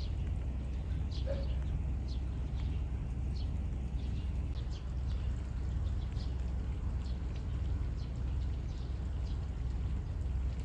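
Many short, high bird chirps, repeated irregularly over a steady low rumble.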